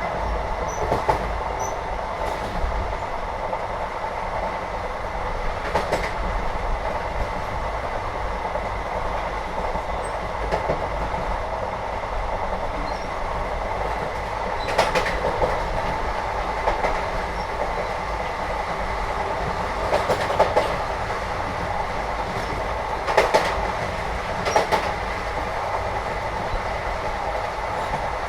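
Inside a moving Indian train carriage: the steady rumble of the train running, with sharp clacks of the wheels over rail joints every few seconds, some in close pairs.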